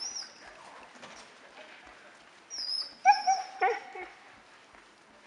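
Puppy whining and yipping in excitement while trotting on a lead: a few thin, high squeaks, then about three seconds in a quick burst of short whines and yips, the loudest sound.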